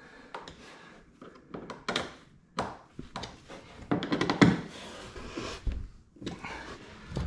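Scattered thunks and taps as a mesh map pocket's frame is handled and fitted into a kayak's deck, with a quick run of knocks about four seconds in.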